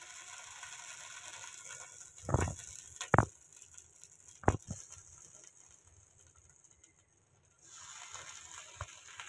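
Steel spoon scraping over a paratha and knocking against a non-stick frying pan while spreading sauce, with a few sharp clicks in the middle and a faint steady hiss.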